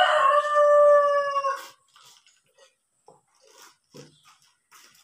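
A rooster crowing once: one long crow whose drawn-out final note is held steady and fades about a second and a half in.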